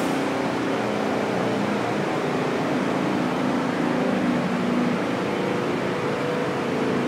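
Steady drone of idling diesel fire-truck engines over street noise, a low hum with a few steady tones that holds level throughout.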